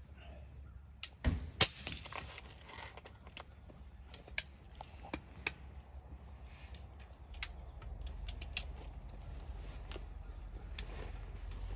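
Air rifle firing once about a second in, followed a third of a second later by a second sharp crack, the pellet striking a metal field target downrange. Light scattered clicks of handling follow.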